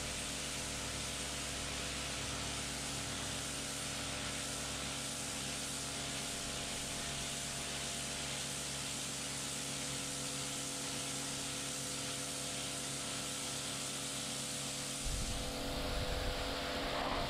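Kärcher K7 Full Control pressure washer running steadily: the motor-driven pump hums under the hiss of the high-pressure water jet blasting grime off patio paving slabs. About fifteen seconds in a rougher, deeper rumble comes in under the spray.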